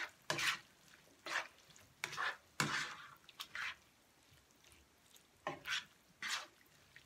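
Spatula scraping and tossing diced sausage, pineapple and vegetables around a nonstick frying pan: about eight short strokes, with a pause of a second or so past the middle.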